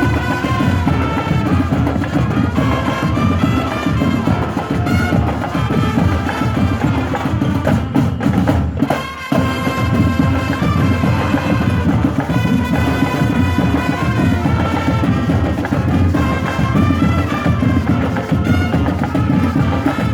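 Tamboril drums beating a dense, continuous traditional rhythm with a high melody line over them, briefly dropping out about nine seconds in.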